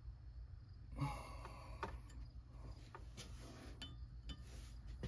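Faint clinks and scrapes of metal vise parts and tools being handled: a louder scrape about a second in, then a few sharp clicks and short scraping sounds, over a steady low hum.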